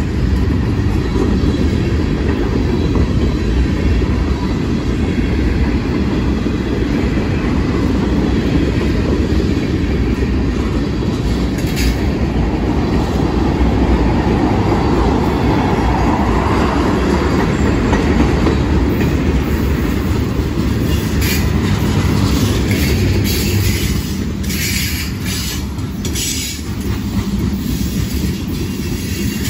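A loaded freight train's tank cars and open-top gondolas roll past, their steel wheels rumbling and clacking over the rails. From about twenty seconds in, a run of sharper clicks and clatter comes through.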